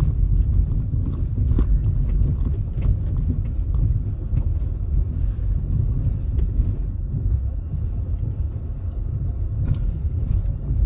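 Car driving on a road, heard from inside the cabin: a steady low rumble of engine and tyres.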